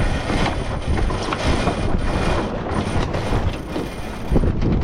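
Sailboat deck gear working as the sails are trimmed after a jibe: a winch ratchet and sheet blocks clicking, with many quick irregular clicks over a steady low rushing noise.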